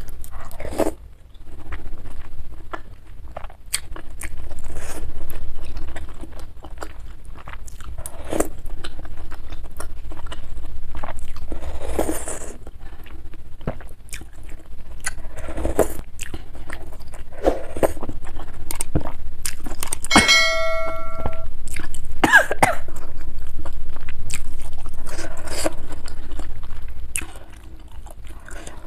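Close-up eating sounds of bakso meatball soup: slurping glass noodles and broth off a metal spoon, and chewing, with spoon clicks against the bowl. About twenty seconds in, one clink rings briefly with a clear tone.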